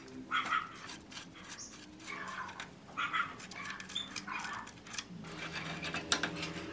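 Small metallic clicks and taps of a nut driver and hands working among rusty wiring in a motorcycle's headlight housing, with several short animal calls, the loudest sounds, near the start, in the middle and about four seconds in.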